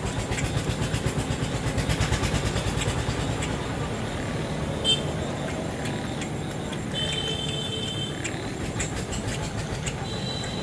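A small engine running with a rapid, even beat, strongest in the first few seconds, with one sharp click about five seconds in.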